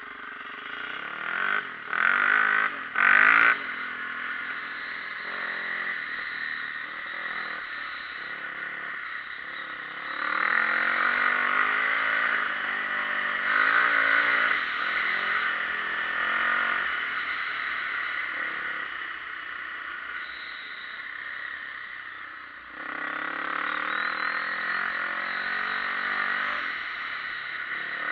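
Dirt bike engine running while riding, its pitch rising and falling as it revs up and down. It is louder from about ten seconds in and again from about 23 seconds. There are two brief loud bursts about two and three seconds in.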